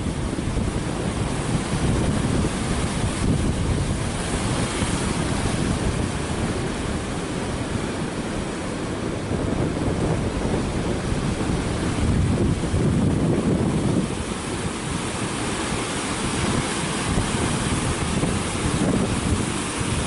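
Sea surf breaking and washing over black volcanic rocks, a continuous rush of white water, with wind buffeting the microphone in uneven low rumbles.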